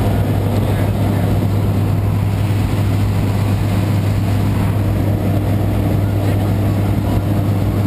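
Small propeller airplane's engine and propeller droning steadily in cruise, heard from inside the cockpit.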